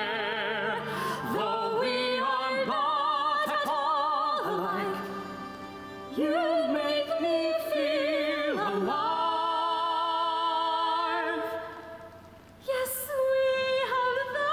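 Stage singing in an operatic musical-theatre style, with strong vibrato: a long held note at the start, then sung phrases, with a short drop in level near the end.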